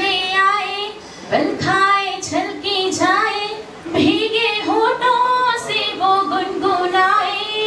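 A woman singing a slow Hindi song solo into a microphone, holding long notes with no instrumental accompaniment.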